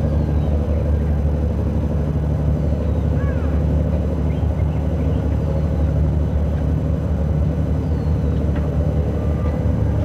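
A steady low engine drone with a constant hum, and a few faint short high chirps over it.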